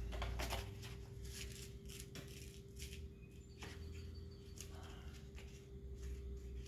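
Faint rustling and light taps of a cardboard template being handled and set in place on a steel plate, over a steady faint hum.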